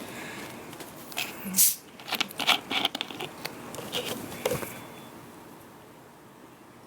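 Rustling and scraping noises in a few quick bursts, busiest in the first four seconds or so, then dying away to quiet room tone.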